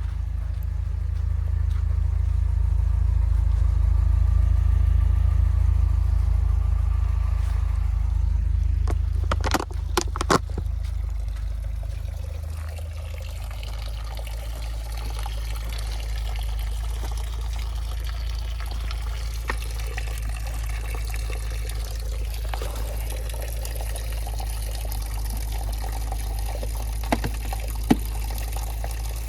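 UAZ Hunter driving: a steady low drone of engine and tyres, with water or slush hissing under the wheels. A few knocks come about ten seconds in, after which the drone settles lower and quieter.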